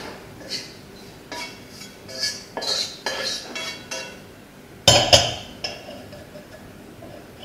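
Kitchen utensils clinking and scraping, with two loud knocks close together about five seconds in as the wok is set back onto the gas burner's grate.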